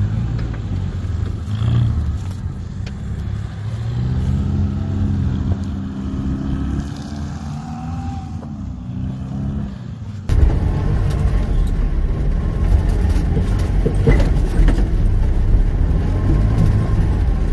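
Off-road 4x4's engine running under load in mud, its revs climbing and holding in a rising drone for several seconds. About ten seconds in, the sound turns abruptly louder and rougher as the engine works hard.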